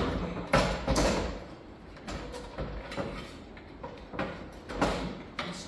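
A small engine being wrestled into a mini bike frame: irregular knocks, clunks and scrapes of metal against metal. The loudest come right at the start and about a second in, with more near the end.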